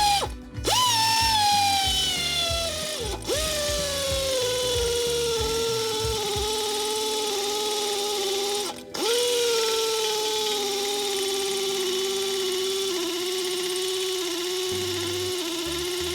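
Small power tool motor whining in three long runs, each starting high in pitch and slowly sinking as the motor slows. Short stops come about a second in, about three seconds in and about nine seconds in. Background music plays underneath.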